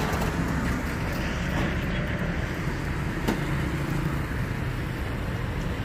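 Truck engine idling steadily, with one sharp click a little over three seconds in.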